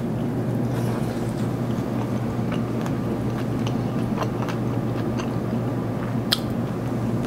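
A person chewing a mouthful of crisp fried birria taco with the mouth closed, with scattered small mouth clicks, over a steady low hum. One sharper click comes a little past six seconds in.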